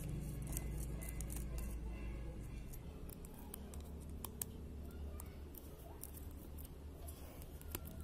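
Precision screwdriver ticking and scraping as it unscrews tiny screws from a smartphone's back frame: scattered small clicks over a low steady hum.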